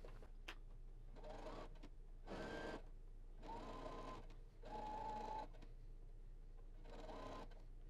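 Brother ST150HDH sewing machine stitching a straight seam in several short runs of under a second each, stopping briefly between them; its motor whine sits at a slightly different pitch from run to run.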